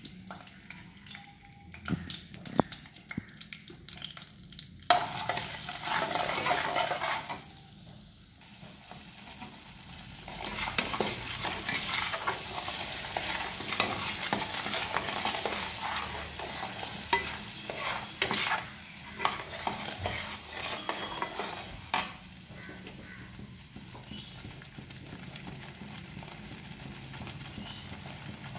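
Ground spices frying in hot oil in a metal kadhai: a sudden burst of sizzling about five seconds in, then steady sizzling with the metal spatula scraping and tapping the pan as the masala is stirred, quieter over the last few seconds.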